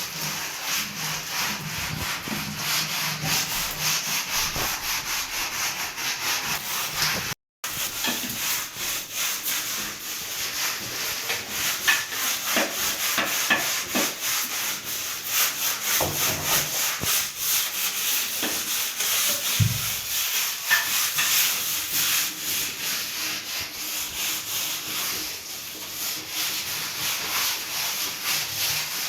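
Continuous fast scrubbing strokes of a brush or cloth rubbed over a surface during cleaning, with a momentary break about seven seconds in.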